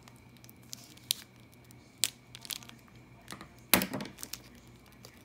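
Scissors snipping through a thin plastic bag, with the plastic crinkling; a few sharp clicks and snips, the loudest about three and a half seconds in.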